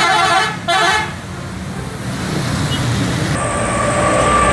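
Bus horn sounding two short blasts right at the start, followed by engine and road traffic noise. A long steady tone comes in over the traffic during the last second.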